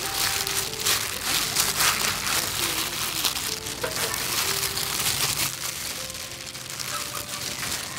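Plastic-gloved hands rustling and crinkling through a basin of wet, freshly washed red chilies, with light splashing; busier in the first five seconds, softer after.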